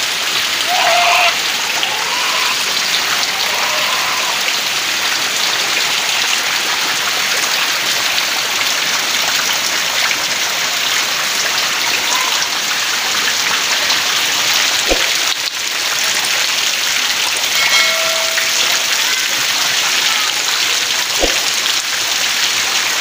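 Heavy rain pouring down steadily onto trees, leaves and waterlogged ground, an even, unbroken downpour.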